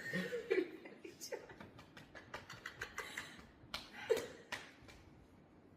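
Soft chuckling and giggling with scattered small clicks, dying away near the end.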